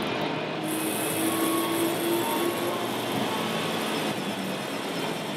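Steady din of a busy exhibition hall, with a faint, steady whine from about a second in until about two and a half seconds.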